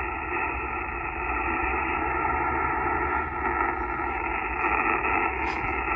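Steady band noise and static from a Yaesu FT-891 transceiver's speaker on 10-metre SSB, with no station transmitting; the hiss is muffled, with nothing above the narrow SSB audio passband.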